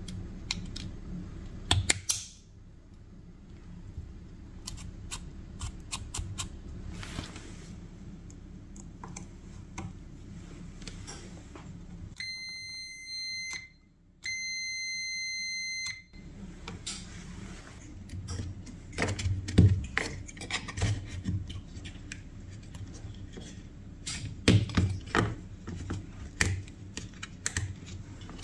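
Clicks and knocks of small hard parts being handled and set down, with two steady high electronic beeps about a second and a half each, separated by a short gap, near the middle.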